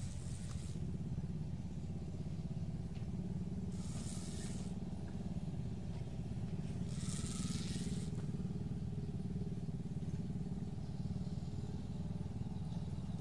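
A small engine running steadily with a low drone, and three short high whirring bursts of a spinning reel's drag as the hooked fish pulls line.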